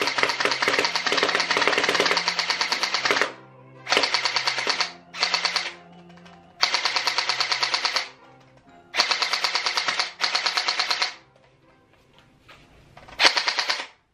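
Glock-style gel blaster with a drum magazine firing full-auto in about six bursts: a fast, even clatter of shots. The first burst runs about three seconds and the later ones are shorter, with brief pauses between.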